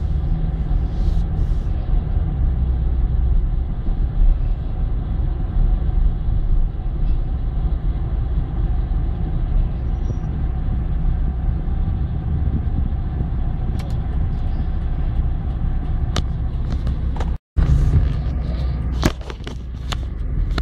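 Steady low rumble of engine and road noise inside a car's cabin as it drives slowly. Near the end the sound cuts out for a moment, then come a few sharp clicks and knocks from the recording phone being handled.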